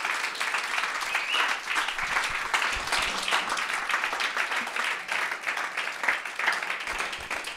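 A congregation applauding: many hands clapping steadily to welcome a guest speaker.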